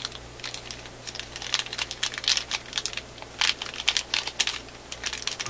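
Clear plastic bag crinkling while small electrolytic capacitors click against each other and the plastic as hands rummage through it: a quick, irregular run of rustles and ticks, busiest in the middle.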